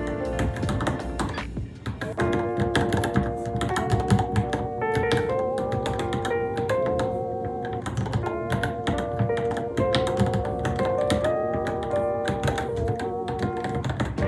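Rapid, irregular keystrokes on a Varmilo Minilo mechanical keyboard, typing continuously, over background music with a wavering melody line.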